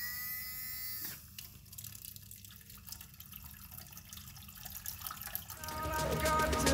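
Small DC motor of a homemade bottle-cap water pump whining as it spins up, its pitch rising and then holding. About a second in, the whine stops with a click and water starts gushing and splashing from the outlet tube into an empty plastic tub. Music fades in near the end.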